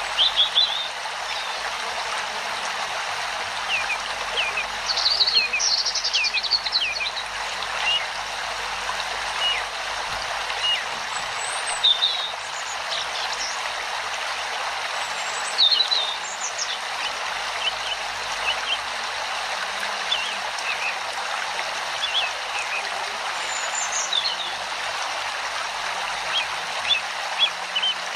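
Steady rush of running water like a stream, with small birds chirping in short high calls every few seconds over it.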